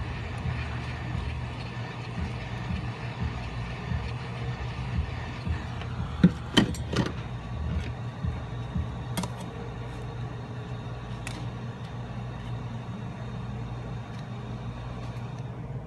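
Heat gun blower running with a steady hum while a smartphone's glass is heated loose, with a few sharp clicks of plastic prying tools around the middle.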